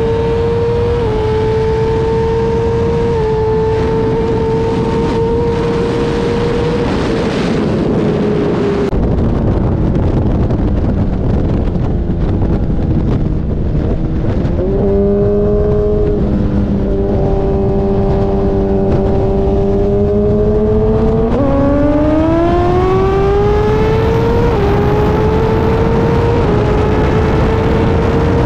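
Sportbike engine under hard throttle at speed, its pitch stepping up and dropping back with each gear change, over heavy wind rush on the microphone. About halfway through it eases to a lower, steady note, then climbs smoothly again through more upshifts near the end.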